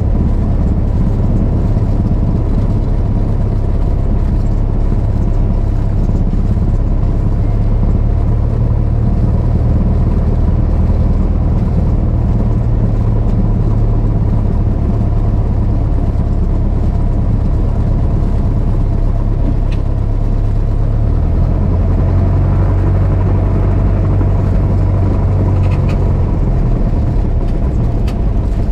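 Single-engine piston Cessna's engine and propeller giving a steady loud drone, its note shifting slightly about three-quarters of the way through.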